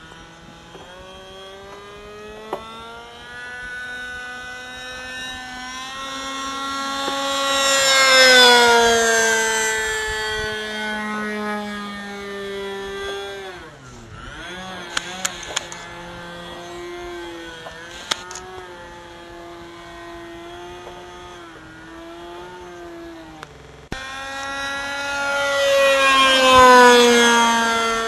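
GMS .47 two-stroke glow engine of a Dolphin 40 RC airplane running in flight, its propeller note building up and then dropping in pitch as the plane flies past, twice: about eight seconds in and again near the end.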